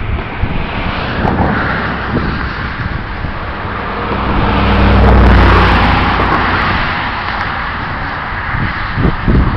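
A road vehicle passing close by, its engine hum and road noise swelling to a peak about halfway through and then fading away.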